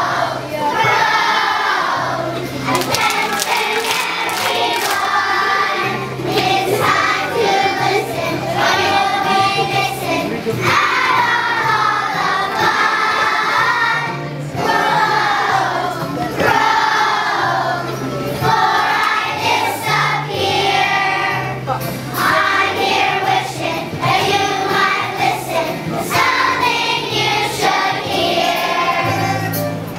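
A group of kindergarten children singing a song together over a recorded accompaniment with a steady bass line.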